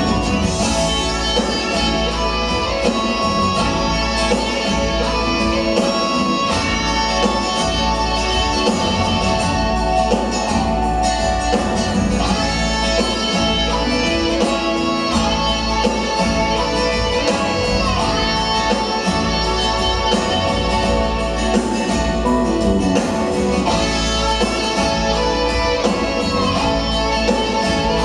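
Rock band playing live: electric and acoustic guitars, keyboards, bass and drums.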